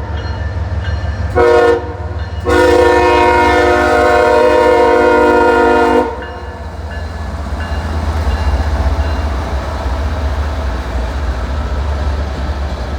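CSX freight locomotive horn sounding for a grade crossing: a short blast about a second in, then a long blast that stops about six seconds in, closing the standard crossing signal. After it comes the low, steady rumble of the train rolling past.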